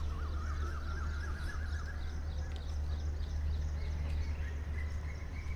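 Several birds chirping and calling: a run of quick rising-and-falling chirps in the first two seconds and fainter high twitters throughout, over a steady low rumble.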